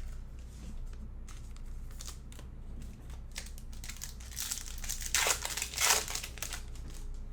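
Sports-card pack wrapper crinkling and being torn open, with scattered crackles and the loudest tearing and crumpling about five to six and a half seconds in.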